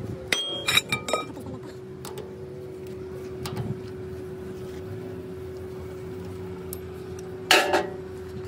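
Metal tools and pump parts clinking and ringing, several quick clinks in the first second and a louder, harsher clank near the end, over a steady hum.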